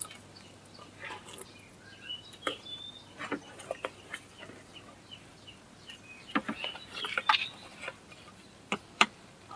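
Scattered light knocks and clicks of hand work, loudest about six to seven and a half seconds in and again near the end, with short bird chirps in the background.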